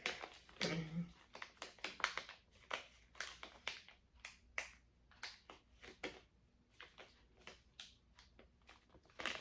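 Small jewelry pieces clicking and clinking as they are handled and sorted by hand: a run of faint, sharp, irregular clicks.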